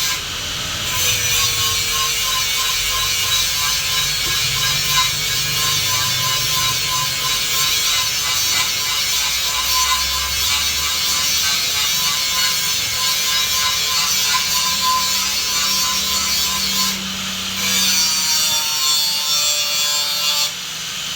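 Steady harsh rasping noise of tool work on a workpiece, broken by short pauses near the start and twice near the end.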